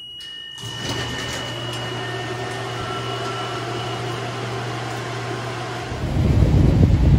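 A steady low mechanical hum, with a few faint steady whines over it, starts about half a second in. About six seconds in it gives way to a louder, rougher low rumble.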